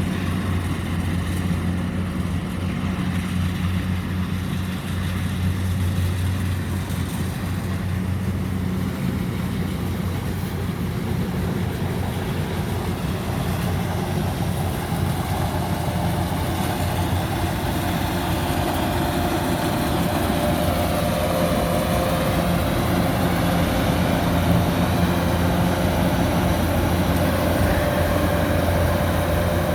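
Kubota DC-105X combine harvester running steadily while cutting and threshing rice, a low diesel engine hum. About halfway through, a higher whine joins in and the sound grows slightly louder.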